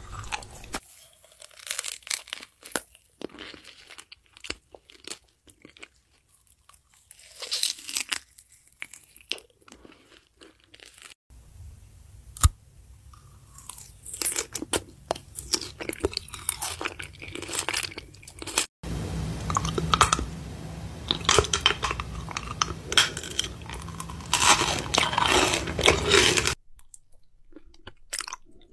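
Close-up eating sounds: a person chewing crunchy food, with bites and wet crackling, in several separate stretches. The loudest stretch comes about two-thirds of the way in.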